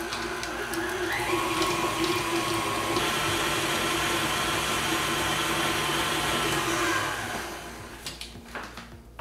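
Tilt-head stand mixer running, its flat beater creaming butter and cream cheese in a steel bowl: a steady motor hum with beater churn. It picks up speed about a second in, then winds down near the end.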